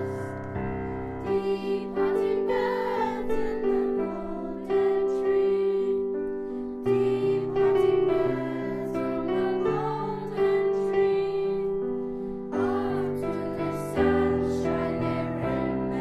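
Children's school choir singing a song with piano accompaniment, in phrases over held piano chords.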